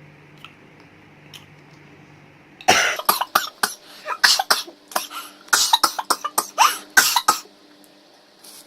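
A woman coughing in a fit of about a dozen sharp coughs in quick succession, starting a few seconds in, after swallowing spicy chili instant-noodle broth.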